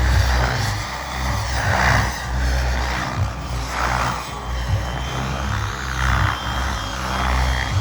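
Turbine-powered Miniature Aircraft Whiplash RC helicopter flying, its rotor whooshing in swells about every two seconds as it manoeuvres, with music playing underneath.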